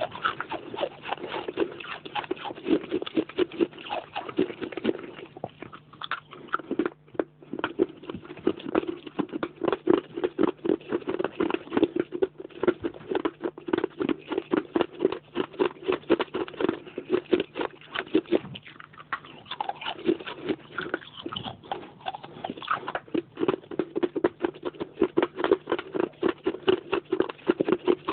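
A person biting and chewing pieces of baked clay pot: rapid, repeated crunching, with a short pause about seven seconds in.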